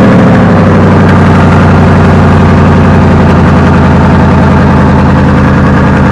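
Dodge Durango 4.7-litre V8, newly fitted with a bolt-on turbo kit, idling loud and steady on its first start. Its pitch settles a little in the first moment, then holds even.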